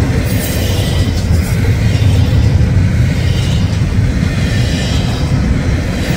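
Union Pacific double-stack intermodal freight train passing close by: a loud, steady rumble of its container well cars rolling over the rails.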